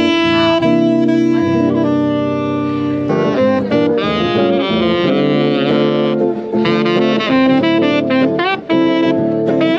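Jazz music with a saxophone playing the melody over lower accompaniment.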